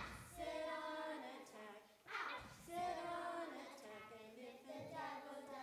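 A small group of children singing a song together, with long held notes.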